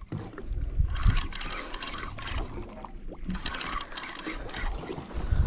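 Wind buffeting the microphone and water lapping and gurgling against a boat's hull, with a Penn spinning reel being cranked as a fish is reeled up from the bottom.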